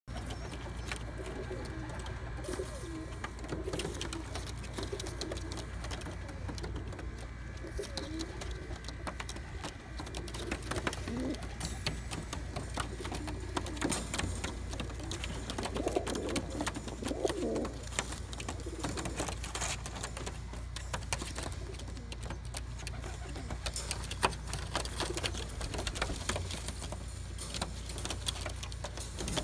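Tippler pigeons cooing over and over, low wavering coos from several birds that overlap at times and swell about halfway through, with scattered light clicks.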